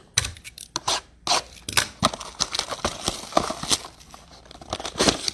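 Hands tearing open a trading-card blaster box: a quick, irregular run of sharp rips, crackles and crinkles of plastic wrap and cardboard packaging.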